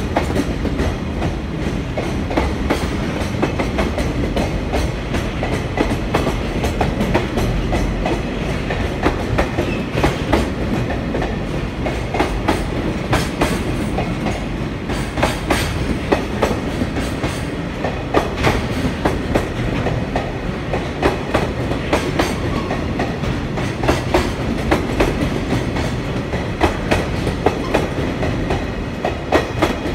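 Container flatcars of a freight train rolling past, the wheels clacking over rail joints with many sharp bangs from flat spots on the wheels.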